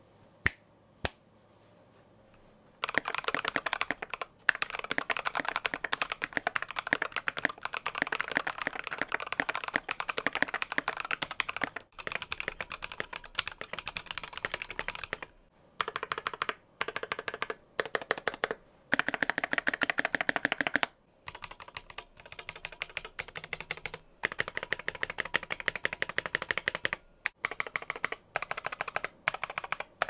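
Typing on a Keychron Q1 aluminium mechanical keyboard with Tecsee Ice Candy linear switches, dampened with Coban wrap on the PCB, foam under the F-row and tape along the case edges against the stock case's hollow, pingy sound. A few single key presses, then fast continuous typing from about three seconds in, broken by several short pauses.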